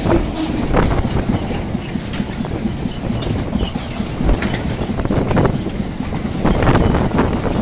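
Loaded freight wagons of an engineering train rolling past at low speed, ballast hoppers giving way to open box wagons, over a steady rumble. The wheels clack sharply over the rail joints, often in quick pairs.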